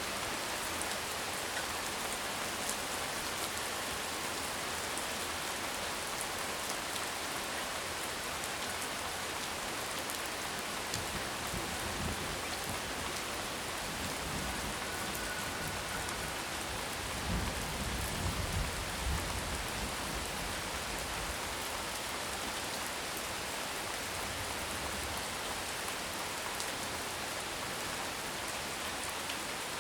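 Heavy rain falling steadily: an even hiss of downpour with scattered individual drop ticks. A low rumble swells up a little past halfway and fades again.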